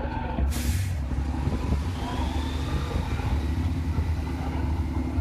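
Heavy diesel engine of a six-wheeled off-road trial truck running as it crawls over a dirt mound: a steady low rumble. There is a brief hiss about half a second in.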